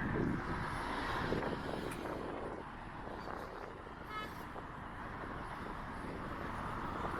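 Wind blowing on the microphone over passing road traffic, with a brief high-pitched tone about four seconds in.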